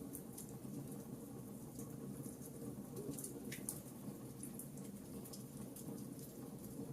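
Campfire burning with irregular, sharp crackles and pops, a few a second, over a steady low rumble of the flames.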